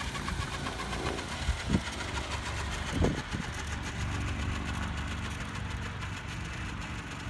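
Electric RC scale helicopter (Synergy E5 with MD500 body) on the ground, its main rotor and motor winding down with a steady whir, broken by a few low thumps about one and a half and three seconds in.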